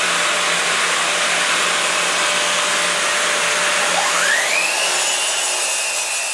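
A shop dust extractor runs with a steady loud whoosh of suction. About four seconds in, the Metabo KGS18 LTX 216 cordless miter saw's brushless motor spins up with a quickly rising whine that levels off into a steady high whine as the blade reaches speed.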